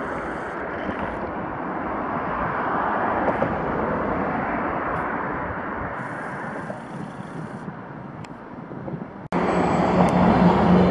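Electric passenger train running toward the station along the tracks: a steady rushing rumble that swells a few seconds in and fades. About nine seconds in the sound cuts off abruptly and a louder steady hum with a low tone takes over.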